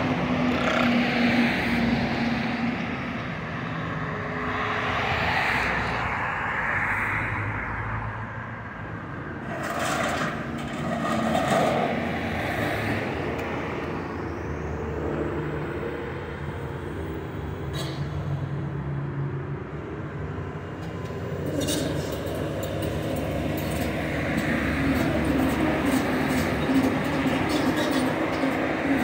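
Diesel excavator engine running under load as the machine works on a building, its pitch shifting with the work. A few crashes and scrapes of steel and debris come through, about ten, eighteen and twenty-two seconds in.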